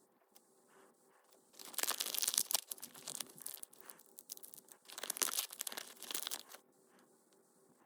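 Plastic toy packaging crinkling and being torn open, in two bursts of a second or two each, the second starting about five seconds in.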